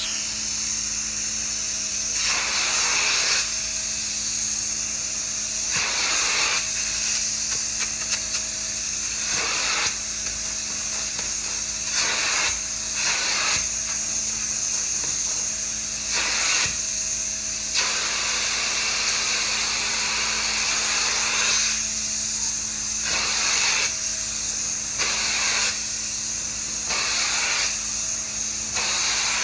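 Upholstery cleaning extractor running steadily, a constant motor hum under a high hiss. Every one to four seconds there is a louder rush of spray and suction as the hand tool is drawn in a stroke across the sofa fabric.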